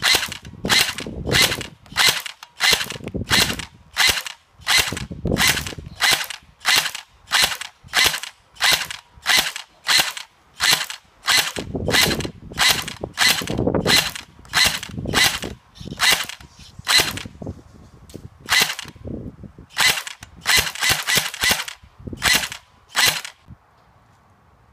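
Electric airsoft gun firing single shots on semi-automatic, each a sharp snap. They come steadily at about two shots a second, then slow with pauses, a quick run of four shots, and two last shots.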